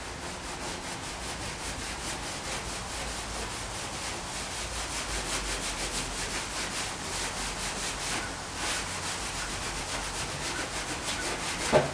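Sandpaper being rubbed back and forth over the painted sheet-metal body of a 1959 VW Type 2 single cab, taking off paint in quick, even strokes of about five a second, with a short knock just before the end.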